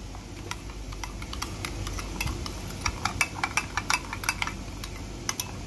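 Metal spoon stirring a milk, sugar and yeast mixture in a bowl, its edge clicking against the sides, with a run of quicker clinks about three seconds in.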